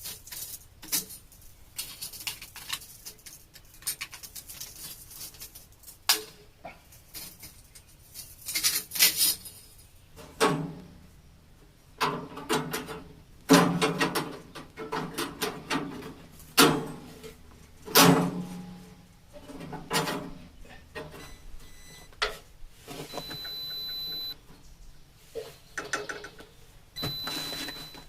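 Irregular clanks, knocks and scrapes of hand work on a band sawmill while its band blade is being taken off. Two brief high steady tones come in near the end.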